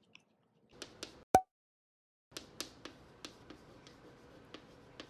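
Chalk tapping and scraping on a blackboard as equations are written: a run of short, sharp taps every few tenths of a second. Before it, about a second in, comes one loud sharp click.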